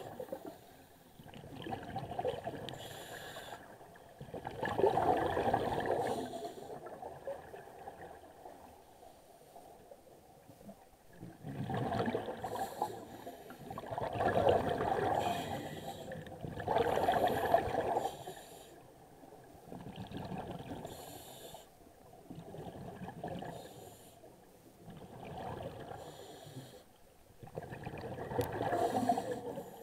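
Scuba diver breathing through a regulator underwater: each exhalation is a burst of bubbling that swells and fades, every few seconds, with quieter gaps between breaths.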